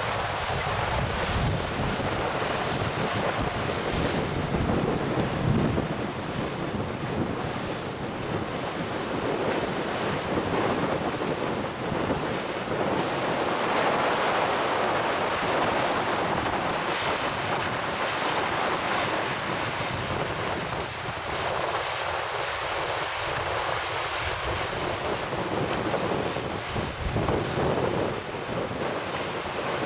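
Wind buffeting the microphone over the rush of water from a boat under way, an even noise that dips a little around the middle.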